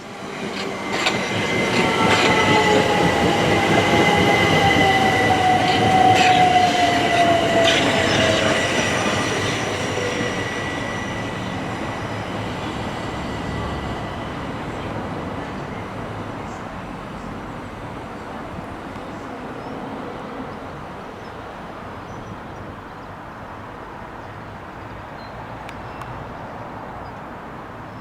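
Thameslink electric train passing through the station. It builds quickly in the first two seconds, runs loud with a falling whine and a steady high wheel squeal, then fades away over the second half.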